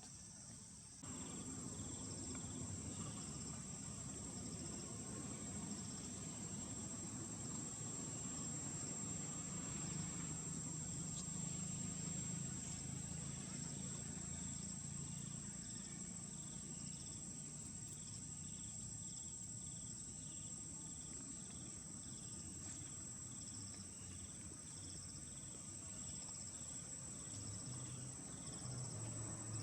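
Steady high-pitched drone of insects, with a second insect chirping in a regular pulse of about two a second over it, above a low rumble.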